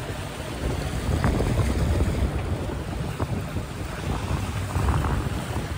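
Wind rumbling on the microphone aboard a sailing yacht, over the rush of water along the hull, with a few faint knocks.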